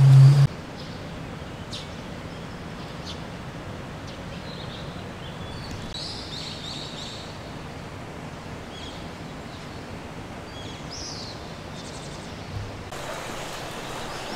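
Outdoor ambience: a steady quiet background hiss with scattered short high bird chirps. A loud low hum cuts off abruptly about half a second in, and the background grows a little louder near the end.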